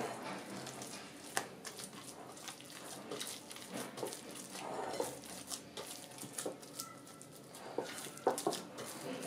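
Hands kneading sticky, oiled pumpkin bread dough in a glass bowl: irregular wet squelches and slaps of the dough.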